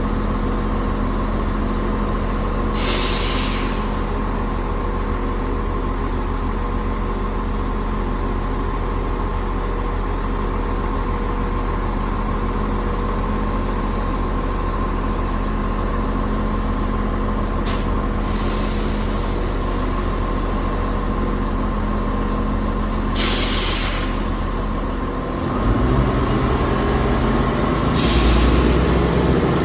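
Chiltern Railways diesel multiple unit standing at the platform with its engines idling: a steady drone with a steady whine, broken by four short hisses of released air. About 25 seconds in, the engine sound changes and grows louder.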